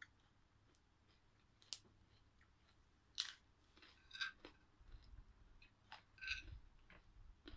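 Faint, crisp crunching and chewing of fresh raw vegetables, bitten and chewed close to the microphone: a handful of short sharp crunches, the loudest about three seconds in.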